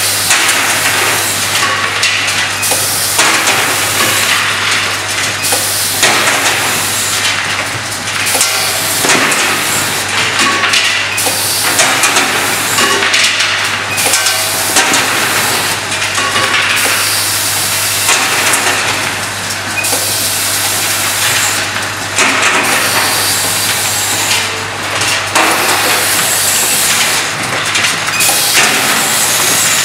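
Automatic cap-and-insert assembly machine running, with a vibratory bowl feeder, conveyor and indexing turntable: a steady low hum under a continuous clatter of parts, the clatter swelling every second or two.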